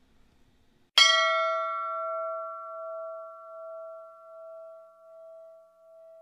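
A single struck bell, hit once about a second in and left to ring. Its bright attack fades quickly, leaving a low steady tone with a couple of higher ones that die away slowly with a regular pulsing wobble.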